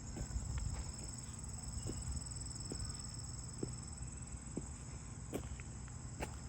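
Insects, likely crickets, trilling steadily in a high continuous band, with a few faint scattered ticks and a low outdoor rumble beneath.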